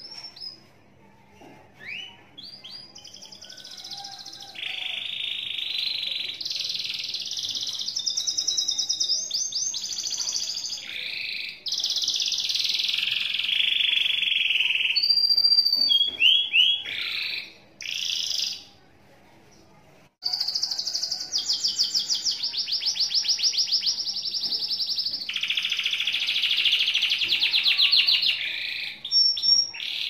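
Domestic canary singing a long song of rapid rolling trills and chirps in sustained phrases, with a brief pause about two-thirds of the way through.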